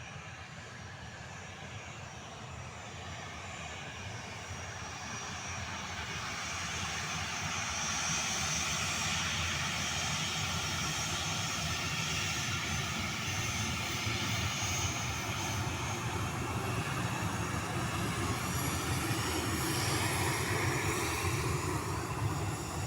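Garuda Indonesia airliner's engines at takeoff power, growing louder over the first eight seconds and then holding steady, with a faint high whine over the rumble.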